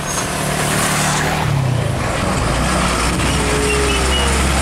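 Hino 500 tractor unit pulling a container trailer drives past close by: its diesel engine is a low drone that grows stronger about halfway through, over a haze of tyre and road noise.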